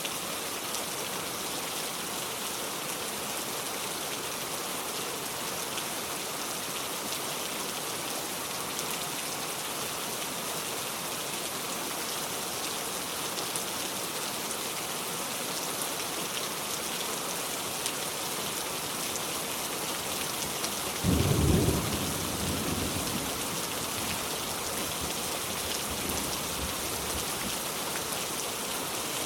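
Steady rain falling, with a single clap of thunder about three-quarters of the way through: a sudden loud low rumble that dies away over a few seconds.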